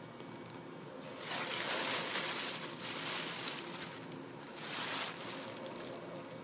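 Tissue paper rustling and crinkling as hands dig through it and lift out a paper card, in two spells: a longer one starting about a second in and a short one about five seconds in.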